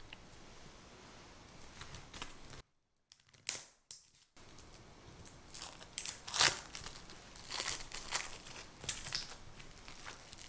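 Plastic cling film crinkling and rustling in short, irregular strokes as it is pulled off a stainless steel ring mould. There is a second or so of dead silence about three seconds in.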